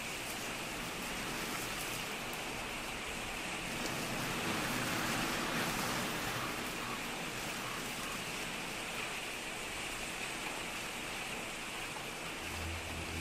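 Steady rushing, rain-like noise forming the ambient opening of a Nordic folk track, swelling slightly midway. A deep low droning tone comes in near the end as the music begins.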